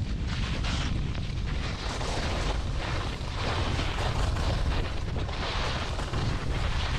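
Wind buffeting the microphone as a constant low rumble, under recurring swells of hiss from skis carving short turns through soft snow.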